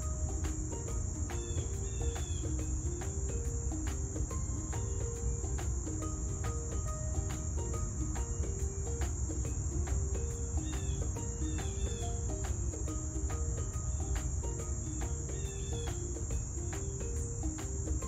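A steady, high-pitched insect drone, like crickets, runs under soft background music with a slow melody of held notes.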